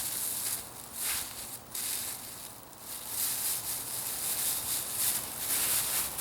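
Plastic bags rustling and crinkling as they are pulled off a newly unboxed bow, a hissy rustle that swells and fades irregularly.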